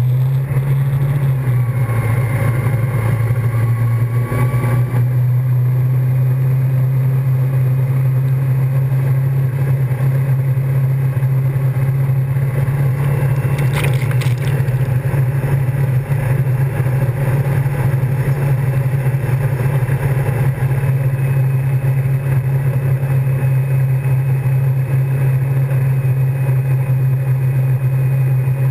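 Wakesurf boat's inboard engine running steadily under load, a loud low drone, over the rushing of the churned-up wake water. About halfway through, water splashes over the camera in a short burst of noise.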